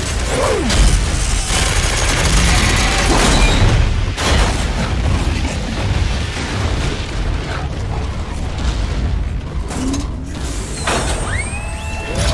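Film battle sound effects: a deep, continuous rumble with heavy mechanical clanking and booms, joined near the end by a few short falling whistling tones.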